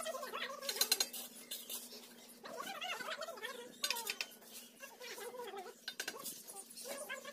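Bricklayers' steel trowels clinking and tapping against bricks and mortar as a brick wall is laid. It is a string of sharp metallic taps, with a cluster about a second in.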